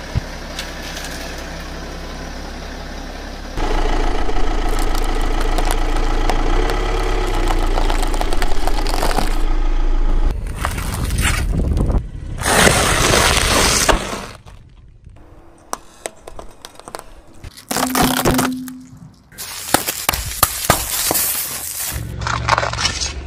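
A car tyre rolling over and crushing objects in a series of separate takes. Plastic drinking straws crack and snap first, then bagged blocks of dry instant noodles crunch, with scattered crackles and pops over a low steady rumble.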